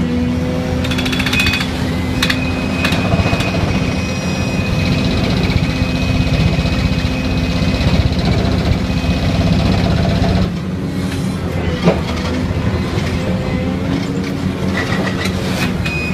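Excavator-mounted hydraulic vibro ripper working its tooth into rock: a fast, steady vibrating rattle with the excavator's engine hum under it. It eases slightly about ten and a half seconds in.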